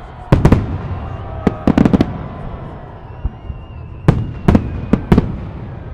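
Fireworks salute shells bursting overhead in sharp bangs. Two come just after the start, a quick run of four or five follows between one and a half and two seconds in, and a few more come between four and five seconds in, over a steady background of crowd noise.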